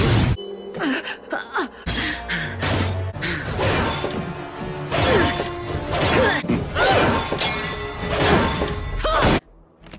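A rapid string of short cartoon clips spliced together: a woman's brief grunts, gasps and cries of effort, each cut off abruptly, over action-score music with crashes and impacts from the fighting. Near the end the sound drops out suddenly for about half a second.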